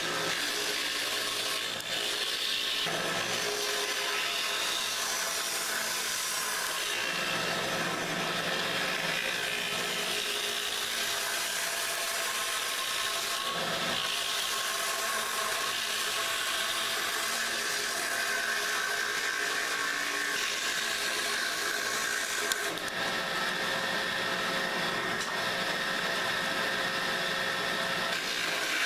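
Homemade dowel-rounding machine running, its one-horsepower high-speed electric motor belt-driving a cutter head that shaves hard, dry mahogany sticks round as they are fed through. It makes a steady machine whir, and the cutting noise changes several times as sticks go into and come out of the cutter.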